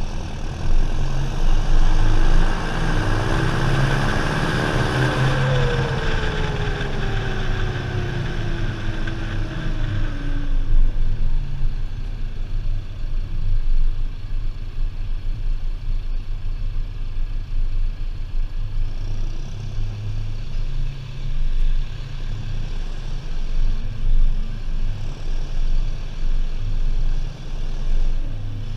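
John Deere 6430 Premium tractor's four-cylinder turbo diesel engine running on the road. For the first ten seconds or so a high turbo whine sits over the engine, and its tone falls as the engine eases off. After that it settles into a steadier, lower drone.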